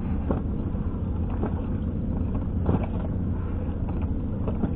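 Boat engine idling with a steady low rumble, with a few light knocks over it.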